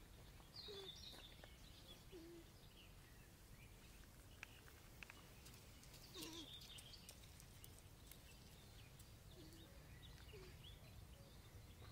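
Faint outdoor ambience with a few scattered, distant bird chirps.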